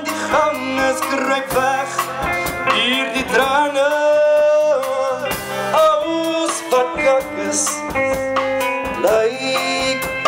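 Music: a song with a sung melody over guitar and drums.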